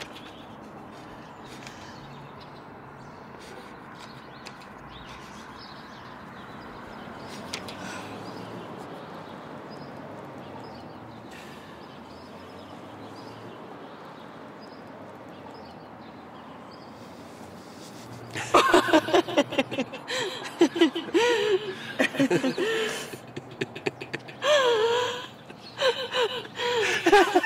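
Faint steady outdoor hush for most of it, then about eighteen seconds in a woman starts laughing through tears: loud, halting gasps of laughter whose pitch swoops up and down.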